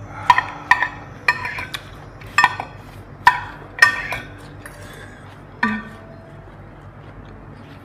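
A metal fork and spoon clinking against a large glass serving bowl as noodles are dished out: about eight sharp, ringing clinks in the first six seconds.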